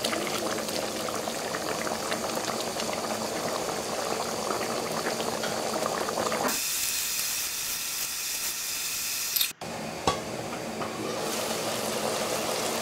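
Pot of rice and green peas boiling in water, a steady bubbling of the nearly cooked pulao. For a few seconds past the middle it turns into a brighter hiss, then cuts out sharply with a click before the steady bubbling resumes.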